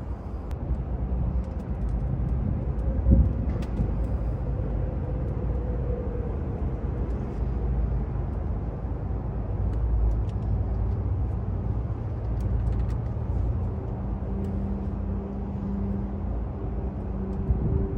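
Steady low rumble of a vehicle, with a few light clicks scattered through it.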